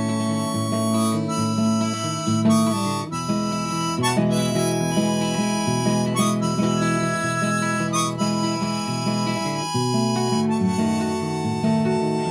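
Harmonica playing a slow country tune in held notes and chords, changing every second or so, over guitar accompaniment.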